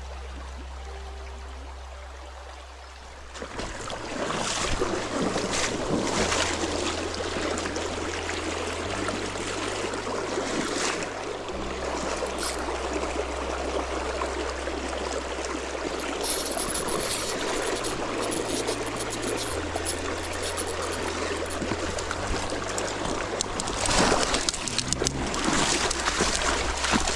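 Background music with a slow bass line that changes note every few seconds. From about three and a half seconds in, the steady rush of flowing river water sounds over it, with a few louder gusts of noise, the loudest near the end.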